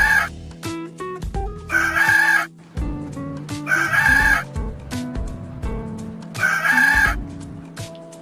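Rooster crowing, three short crows about two and a half seconds apart, with a music track playing underneath.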